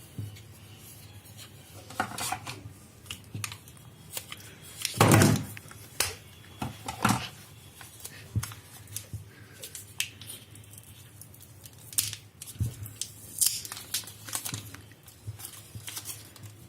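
A phone's retail box and packaging being handled during unboxing: scattered clicks, taps and rustles, with one louder, longer rustle about five seconds in.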